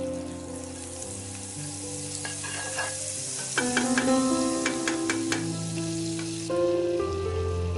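Butter sizzling as it melts in a hot nonstick pan, stirred with a wooden spatula, with a few light clicks of the spatula against the pan about halfway through.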